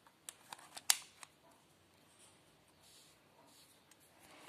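Toy ball pistol's loading lever and slide worked by hand: a few sharp clicks in the first second or so, the loudest about a second in, then only faint hiss.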